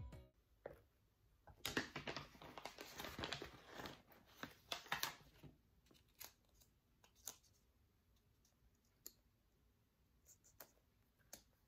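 Faint crackling rustle of a printed paper sticker label being peeled off its backing sheet for a few seconds, followed by scattered soft taps as the label is pressed onto a jar lid.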